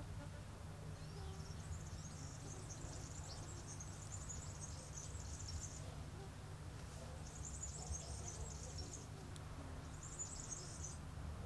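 Insects trilling in high, buzzy bursts lasting a few seconds each, three times, over a faint steady low rumble.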